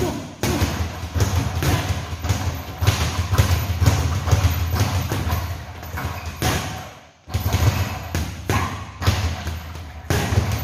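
Boxing gloves punching round leather hanging bags in fast combinations: a quick run of thuds, with a short pause about seven seconds in. A speed bag rattles alongside.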